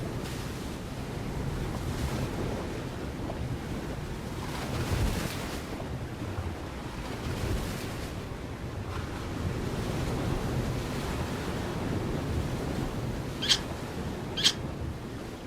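Steady low rushing noise of wind and surf, with two short high bird chirps about a second apart near the end.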